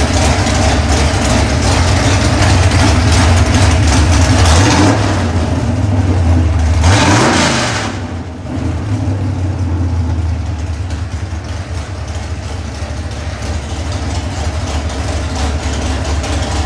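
347 stroker small-block Ford V8 with Borla stack injection running on an engine dyno, exhaust pipes pulled back from the header collectors. It runs steadily, revs up about five to seven seconds in, drops back suddenly near eight seconds and settles into a lower idle.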